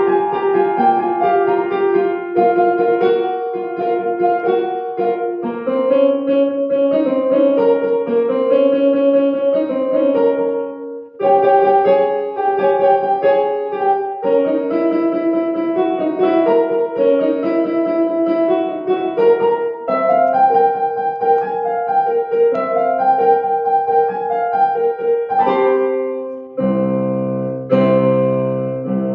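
Solo piano playing a lively piece in quick, dense runs of short notes, with a brief break about eleven seconds in and heavy low chords near the end.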